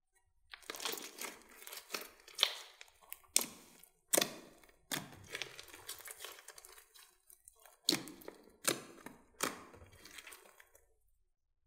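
Hands squeezing and kneading a large mass of glossy slime studded with foam beads. The slime crackles and crunches, with about seven sharp pops along the way.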